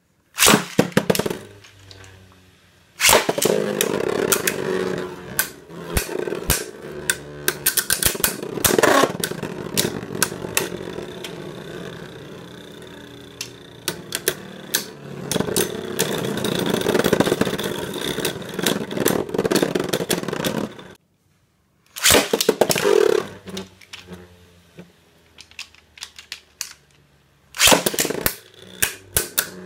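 Beyblade Burst spinning tops battling in a plastic Takara Tomy B-09 stadium: several rounds, each opening with a loud launch and clatter, then a whirring spin full of sharp clacks as the tops strike each other and the stadium wall.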